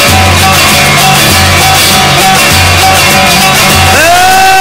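Loud background music with a rock feel, built on a repeating bass pulse. About four seconds in, a note slides up and is held.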